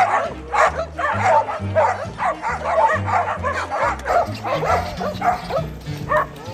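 Several dogs barking and yipping, many short overlapping barks throughout, over background music with a bass line.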